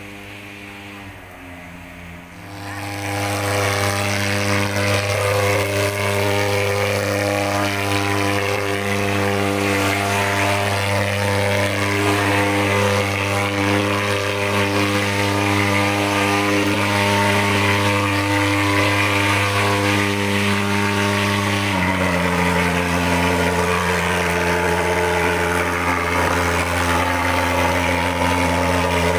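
Portable pulse-jet thermal fogging machine running with a steady loud drone while it blows insecticide fog against mosquitoes. It swells to full loudness about two seconds in, and its pitch drops slightly about three-quarters of the way through.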